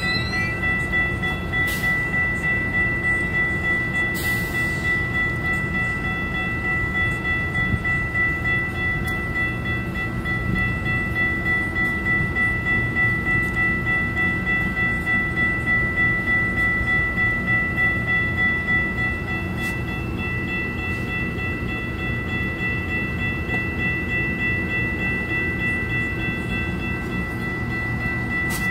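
Safetran Type 3 electronic crossing bells ringing steadily at about two strokes a second, the grade-crossing warning of an active activation. Beneath them, the low running noise of a Metrolink bilevel passenger train moving slowly through the crossing.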